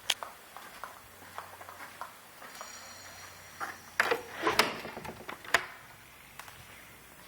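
Scattered sharp clicks and knocks, busiest and loudest between about four and five and a half seconds in.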